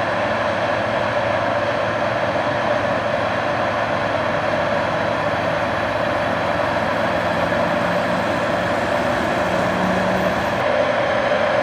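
Heavy harvest machinery running steadily, a continuous loud machine noise without breaks.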